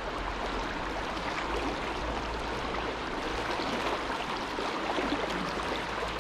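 River current rushing and rippling past in a steady wash of water noise.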